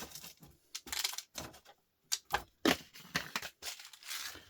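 Irregular sharp clicks and knocks of small scrap pieces being handled and dropped into sorting containers, about a dozen in all.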